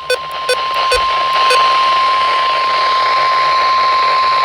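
NOAA Weather Radio warning alarm tone: one steady high tone over radio hiss, the signal that a warning broadcast follows. A few short clicks come in the first second and a half.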